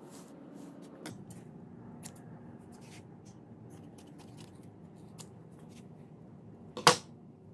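Scissors snipping through fabric: scattered short cuts about a second apart, with one much louder sharp snip near the end.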